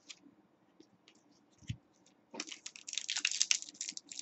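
A stack of trading cards being thumbed and slid through the hands: a few faint clicks at first, then from about halfway in a rapid run of crisp card flicks and rubs.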